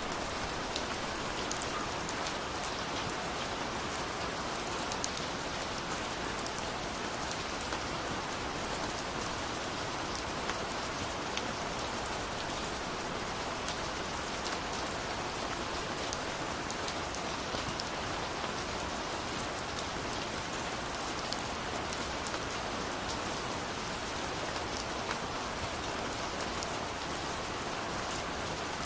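Steady rain falling, with many small drops pattering and ticking on a surface.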